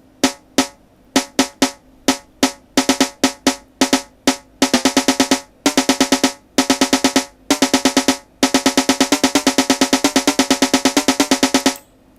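Sequenced snare drum roll fill played back in FL Studio. Single snare hits come in uneven rhythmic groups with short quicker runs, then a long fast roll of about a dozen hits a second that stops sharply near the end.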